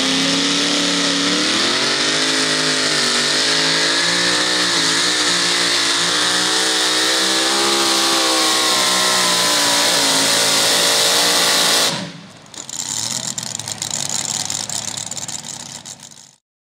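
Supercharged engine of a super modified two-wheel-drive pulling truck running at full throttle under load as it drags the weight-transfer sled, its pitch wavering up and down. About twelve seconds in the sound drops off suddenly, and a lower, crackling engine sound follows for a few seconds before it stops.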